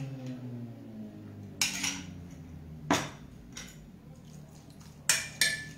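A metal spoon clinking against a ceramic bowl and a glass dish while dressing is spooned onto chopped salmon: a handful of sharp clinks spaced out, two close together near the end, over a faint steady low hum.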